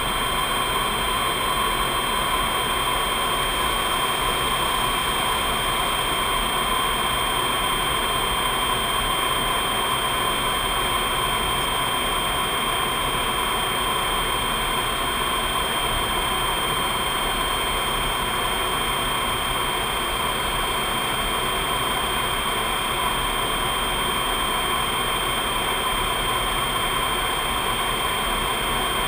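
Steady flight-deck noise of a C-5 Galaxy transport jet in level flight: a constant rush of airflow and turbofan engine hum, with a steady high whine over it.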